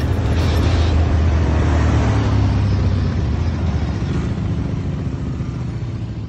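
Engines of a line of quad bikes (ATVs) riding past on a road: a steady low engine drone that slowly gets quieter from about a second in.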